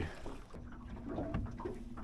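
Faint background music: a single held low note begins about half a second in, over quiet ambient noise.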